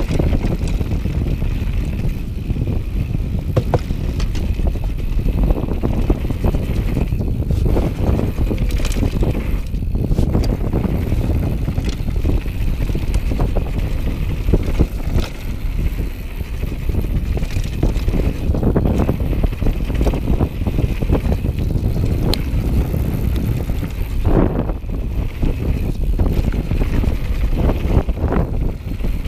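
Downhill mountain bike descending a rough dirt and gravel singletrail: tyres crunching over stones, with the chain and suspension clattering in many short knocks over the bumps. Heavy wind buffeting on the microphone runs under it all.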